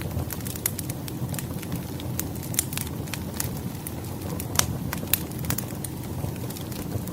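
Campfire crackling, with irregular sharp pops and snaps over a steady low rumble of burning.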